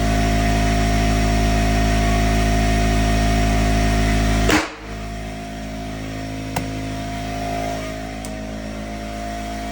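Air compressor running steadily while a tire is inflated to seat its beads. About four and a half seconds in comes one loud pop, the bead snapping onto the rim, after which the running sound is quieter; a small click follows about two seconds later.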